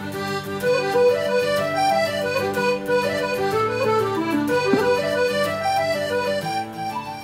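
Background music: a solo accordion tune, a moving melody over held bass chords, fading out near the end.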